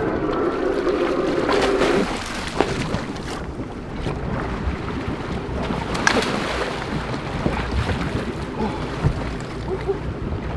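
Water splashing against the boat's hull as a hooked yellowfin tuna thrashes at the surface and is gaffed, with a few sharp splashes and knocks, the clearest about 6 seconds in. Under it runs a steady hum in the first two seconds, likely the boat's engine, along with wind on the microphone.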